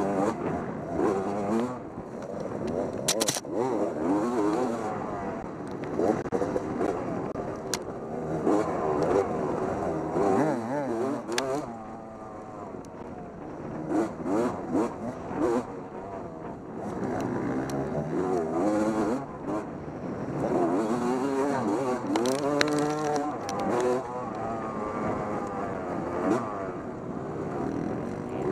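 Motorcycle engine revving up and down over and over while being ridden hard, with scattered knocks and rattles.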